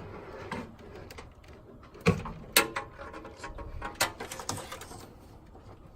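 Several sharp clicks and knocks of hard objects being handled, the two loudest about two seconds in and half a second apart, another near four seconds, with light rattling between.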